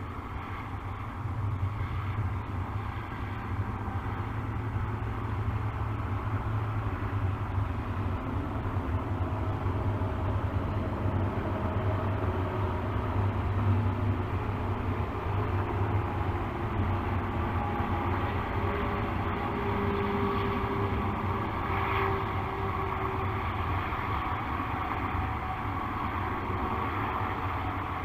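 Steady low rumble of distant vehicle traffic.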